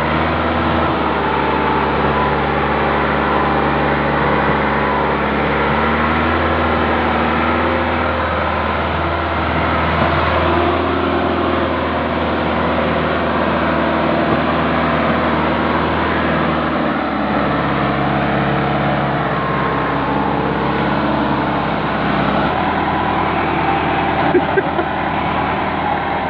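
Massey Ferguson 375 tractor's diesel engine running steadily under heavy load, trying to haul an overloaded sugarcane trolley out of soft field ground. Its pitch shifts a few times as the revs change.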